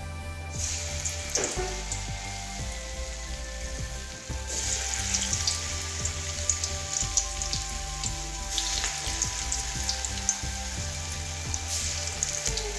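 Moong dal vada batter deep-frying in hot oil in a steel kadai: a dense sizzle full of small crackles that starts about half a second in as the batter hits the oil, dips briefly, and swells again about four and a half seconds in.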